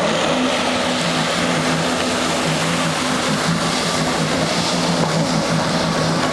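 Jet ski engine running steadily at speed, a constant drone over an even hiss of water spray and wind.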